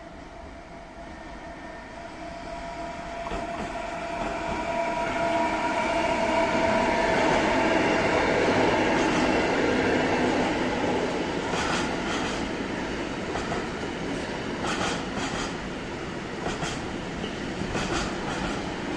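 Electric-hauled container freight train passing on the mainline. The sound builds as the locomotive approaches and is loudest as it passes about eight seconds in, with a steady whine. The container wagons then roll by with sharp clicks of wheels over rail joints and points.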